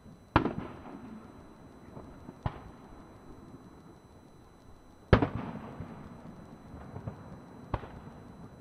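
Aerial firework shells bursting: four sharp bangs, the loudest about half a second in and about five seconds in, each of those two trailing off for about a second, with a few faint crackles between.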